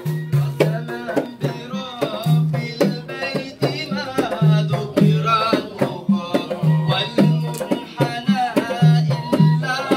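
Hand drums beating a steady rhythm under voices chanting devotional praise songs.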